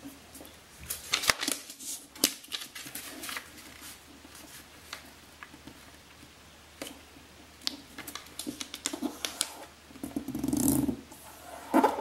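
A sheet of origami paper being folded in half and creased by hand: scattered crisp crinkles and taps as fingers press and run along the fold, with a longer, louder rustle of the paper about ten seconds in.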